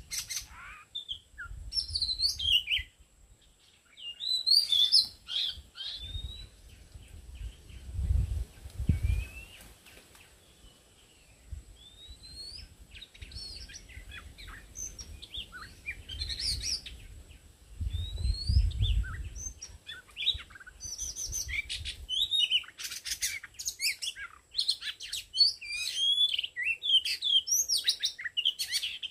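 Oriental magpie-robins singing: varied whistled phrases and quick chirps in bursts, densest in the last third. A faint low rumble comes twice, about a third and two-thirds of the way through.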